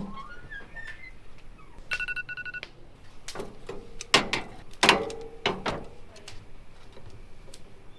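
A short run of electronic beeps about two seconds in, followed by several loud sharp knocks and clacks.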